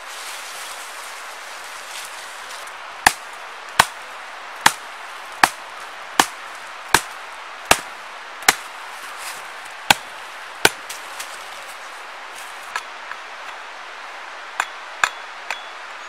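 Hatchet chopping a branch: a run of about ten sharp strokes, one every three-quarters of a second or so, then a pause and a few lighter strokes near the end.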